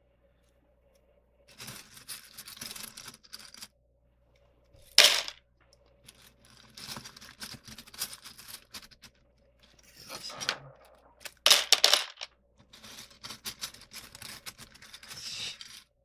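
Tiny plastic pieces of a 22x22 Rubik's cube being pried out with an X-Acto knife, with on-and-off scraping and small plastic clicks. There is a sharp click about five seconds in and a few more around twelve seconds in.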